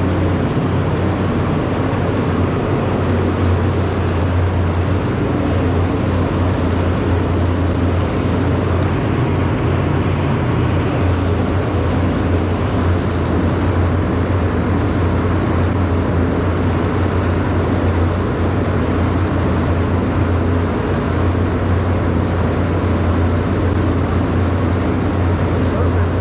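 Steam unit heater running with its fan blowing: a loud, steady rush of air over a low motor hum.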